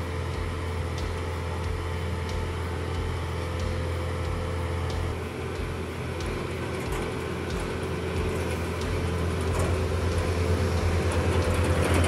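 Diesel engine of a Claas CT 40 combine harvester running steadily, a deep even drone with a steady hum above it that grows a little louder over the last few seconds.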